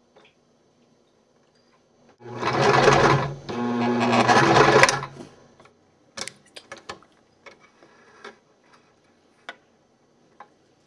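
Sewing machine running in two short bursts, stitching new elastic onto old elastic with a zigzag stitch, followed by a string of faint clicks and taps.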